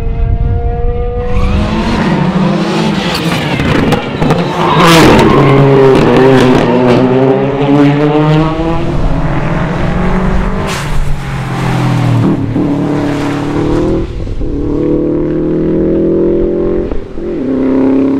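Rally cars, Subaru Imprezas among them, driven flat out on a stage: engines revving hard and dropping back through gear changes. There is a sharp bang about five seconds in and another around eleven seconds.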